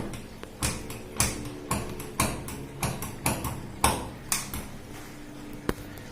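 About a dozen sharp clicks and knocks at irregular intervals from a front-loader washing machine being handled after its door-lock repair, some with a brief ringing tone after them; they stop about four and a half seconds in, apart from one last click.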